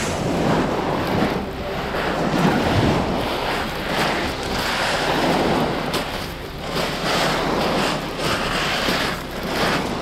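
Wind buffeting the camera's microphone outdoors: a loud, rushing rumble that swells and dips every second or two.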